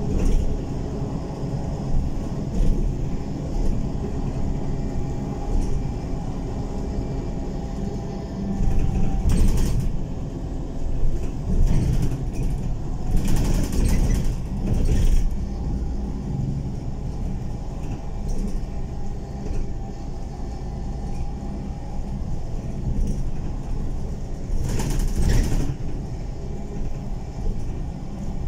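City bus driving, heard from inside the passenger cabin: steady engine and road rumble with a faint whine. A few brief louder rushes of noise stand out, the longest about halfway through.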